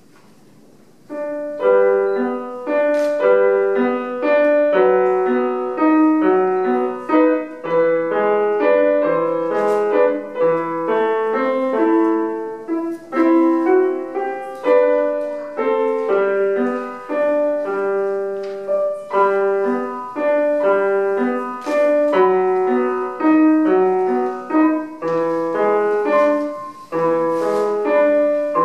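Solo piano playing a classical piece, starting about a second in with a steady flow of broken-chord notes.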